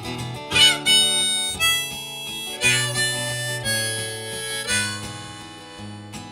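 Live acoustic instrumental music: a harmonica playing a melody of held notes over a low, steady guitar accompaniment.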